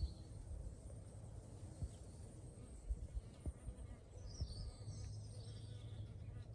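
Quiet background: a low rumble with a few soft knocks, and faint high bird chirps about four to five seconds in.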